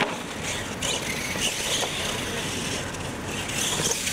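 Radio-controlled monster trucks racing across concrete: a steady noisy rush of their motors and tyres.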